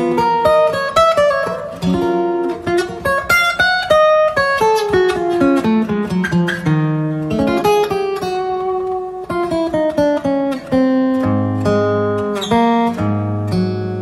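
Solo cutaway acoustic guitar playing an instrumental passage: a picked melody over chords, with deeper bass notes coming in near the end.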